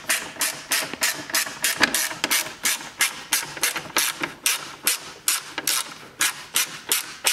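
Hand ratchet tightening a 7 mm screw, its pawl clicking in a fast, even rhythm of about four strokes a second.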